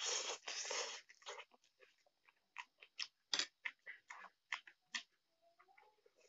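Close-miked mouth sounds of eating instant noodles: a noisy slurp of noodles for about the first second, then wet chewing with many short smacks and clicks.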